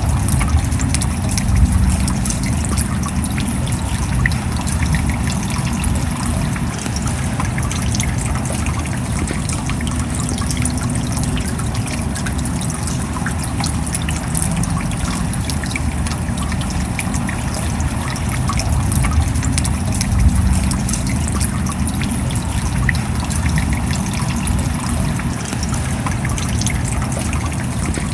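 Steady rain falling: a dense patter of small drops over an even wash of noise.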